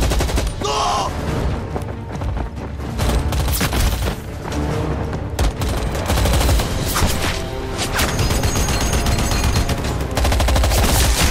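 Bursts of submachine-gun and rifle fire in a film battle sound mix, over a music score. A long rapid burst of automatic fire comes near the end.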